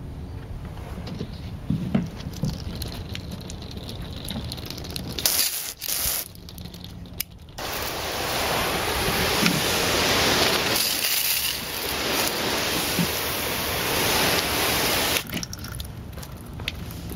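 Garden hose with a spray nozzle rinsing dust off a solar panel: a steady hiss of spraying water that starts about a third of the way in, after a brief first spurt, and cuts off suddenly near the end. Before the spray, a low background rumble with a few soft knocks.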